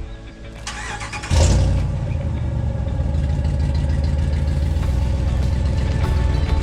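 An engine starts with a sudden surge about a second in, then runs with a steady low rumble.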